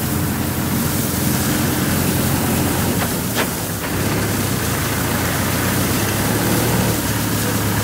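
Diesel farm machinery running steadily with an even engine drone, and a short click about three and a half seconds in.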